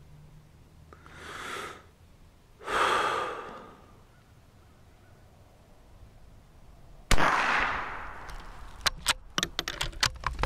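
Two slow breaths, then a single shot from a Ruger American Rimfire bolt-action .22 LR rifle about seven seconds in, a sharp crack with a short ringing tail. A quick series of sharp metallic clicks follows as the bolt is worked to chamber the next round.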